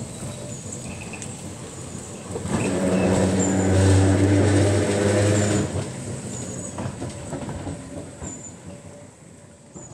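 Vintage double-deck electric tram, Leeds 399, passing by on street track: a rumble with a steady motor hum that swells to a peak in the middle as it goes past, drops off sharply, then fades as it moves away.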